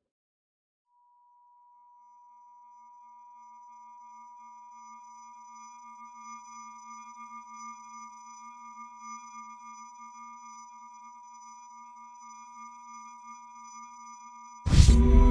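Soundtrack intro drone: a held electronic tone fades in and slowly swells, joined by further steady high tones and a low wavering hum. Near the end a loud hit breaks in as the music starts.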